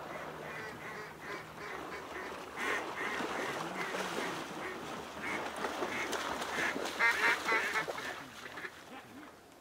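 Waterfowl calling: a steady series of short quacking and honking notes, with a quick, louder run of calls about seven seconds in.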